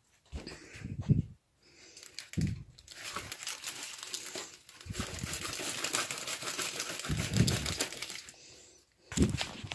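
Paper and taped cardboard crinkling and rustling as they are handled, densest in the middle, with a few dull knocks.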